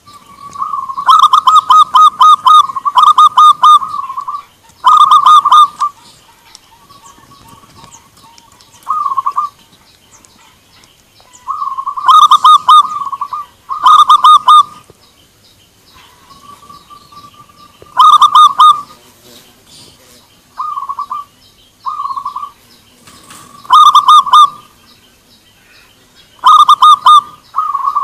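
Zebra doves cooing: about ten bouts of quick, rolling coo notes, each a second or two long, some loud and some fainter, as several birds call back and forth.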